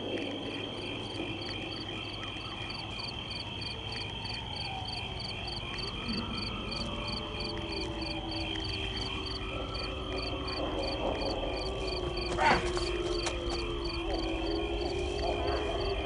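Night ambience of chirping crickets and croaking frogs, with a regular high chirp about three times a second, under slow sliding, wavering tones. A single sharp click comes about twelve seconds in.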